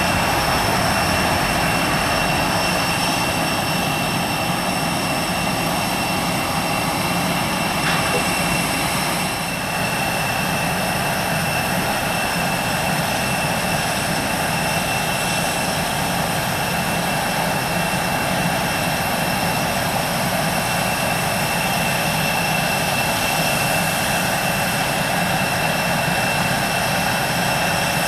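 Regional jet engines running at low power: a steady rushing roar with a constant high-pitched whine.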